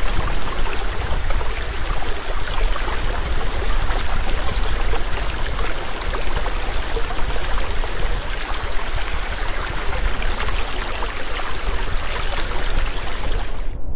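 Waterfall rushing into a pool: a steady, full wash of falling water with a deep rumble underneath, cutting off abruptly at the very end.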